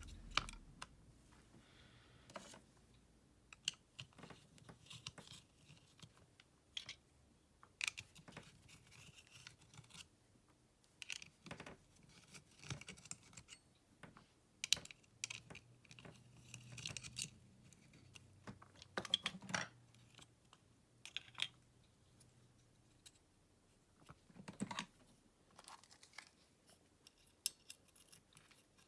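Faint, irregular clicks, taps and scrapes of small plastic and metal parts being handled, as when a cordless screwdriver's battery pack is worked on by hand.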